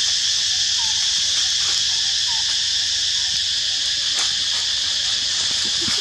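Loud, steady, high-pitched drone of insects, unbroken throughout, with a few faint short chirps in the first half and a single click about four seconds in.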